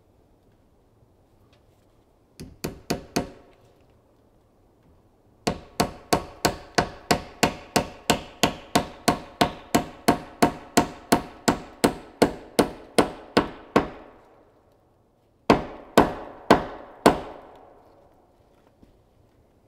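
Hammer driving nails into a log cabin's wooden roof: four quick blows, a pause, then a long steady run of about three blows a second, and four more blows near the end, each ringing briefly.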